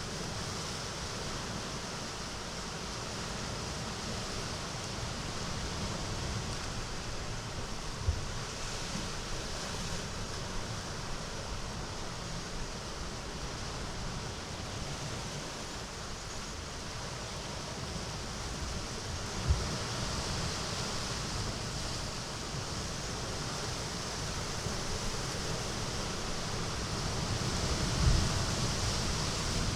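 Sea surf washing into a small cove: a steady hiss of water that swells now and then as waves come in. Three brief low thumps stand out, a few seconds into the stretch, about midway and near the end.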